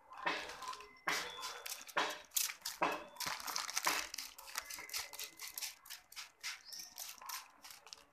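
Hand trigger spray bottle squirting a series of short sprays onto a plastic courier bag, with the plastic bag crinkling as it is handled.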